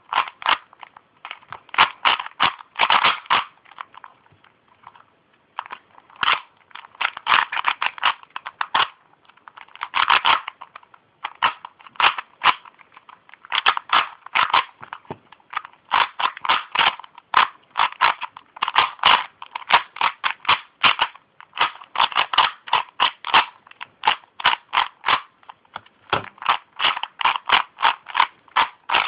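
New DIY-kit Rubik's Cube being turned fast in a speedsolve: plastic layers clicking and clacking in quick runs of turns, with short pauses between runs.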